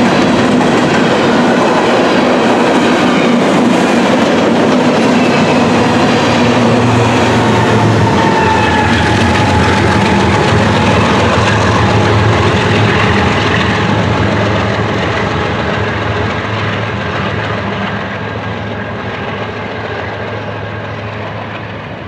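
BNSF freight train of covered grain hopper cars rolling past on steel wheels, with a faint thin ringing tone from the wheels in the middle. A low steady hum joins about seven seconds in as the end locomotive passes, and the whole sound fades from about fourteen seconds in as the train pulls away.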